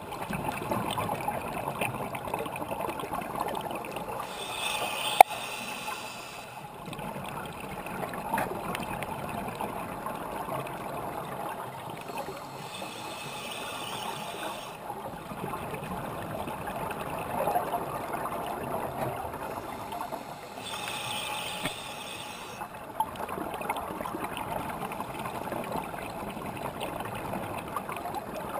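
Scuba diver breathing underwater through a regulator: a hissing inhalation three times, about every eight seconds, with bubbling exhalations between. One sharp click about five seconds in.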